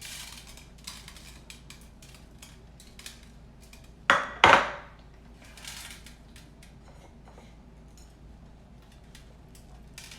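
Kitchen utensils and dishes clinking and scraping while spice mix is spread over raw chicken, with two loud knocks in quick succession about four seconds in.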